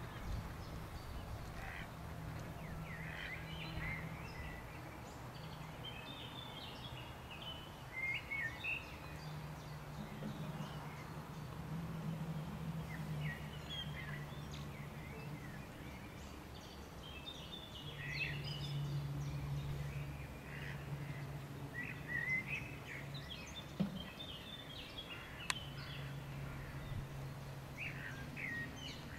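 Small birds chirping and twittering on and off, over a low steady hum.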